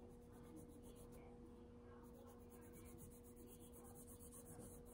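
Faint scratching of a pen drawing a line on fabric, over a low steady hum.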